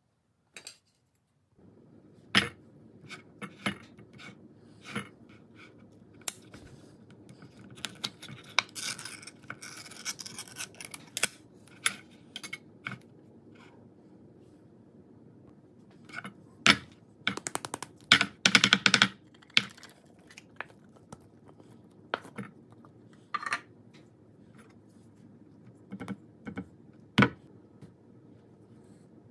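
A metal can of Spam handled on a wooden cutting board, with scattered sharp clicks and metallic knocks. A stretch of scraping and tearing about eight to eleven seconds in is the pull-ring lid being peeled off. A quick flurry of knocks and scrapes around seventeen to nineteen seconds in comes as the block of Spam is worked out of the can.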